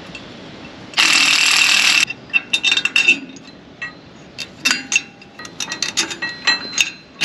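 A cordless impact driver runs for about a second on the cleaning fan pulley of a John Deere 9770 combine. It is followed by irregular metallic clicks and clinks as bolts and hardware are fitted at the pulley hub.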